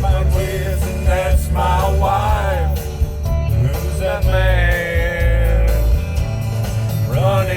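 Background music: a song with a male singing voice over guitar and a steady bass.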